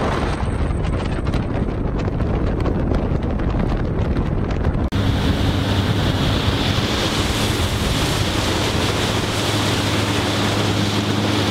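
Wind buffeting the microphone and water rushing past a boat running across open water. After a sudden cut about five seconds in, a boat motor runs steadily at low speed with a low hum and a thin high whine.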